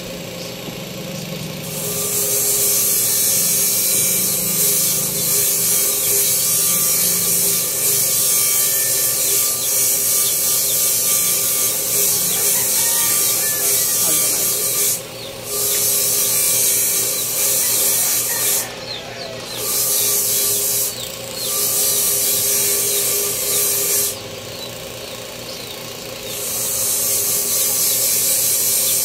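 Power tool working wood: a steady motor whine under a loud, rough hiss that comes and goes as the tool is pressed to the wood. The hiss breaks off briefly a few times and for a couple of seconds near the end.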